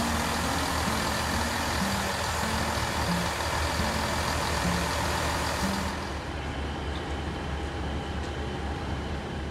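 Diesel multiple unit running along the platform, a steady engine hum with heavy rumble and hiss. About six seconds in, the hiss falls away and a quieter steady hum remains.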